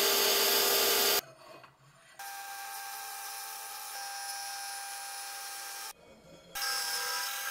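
Horizontal milling machine cutting steel: the spinning cutter makes a steady whine over a hiss of cutting, in three stretches broken by short quieter gaps about a second in and near six seconds.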